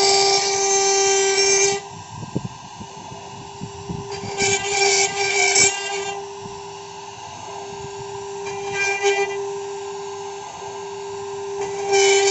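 Servo-driven CNC router running with a steady high-pitched whine. The whine drops sharply in level about two seconds in, flares up briefly twice, and comes back loud near the end.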